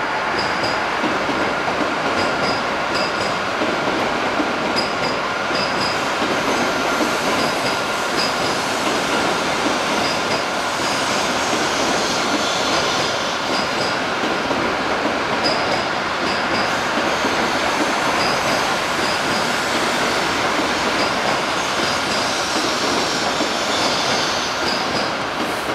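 E7 series Shinkansen trainset running slowly into the depot: a steady rolling noise of wheels on rail, with a faint held squeal and short, high wheel squeaks that come again and again.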